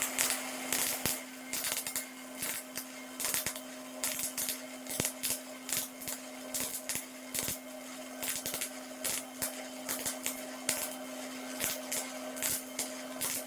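Robotic MIG welding arc on thick steel plate, crackling and spitting in irregular sharp pops several times a second over a steady low hum.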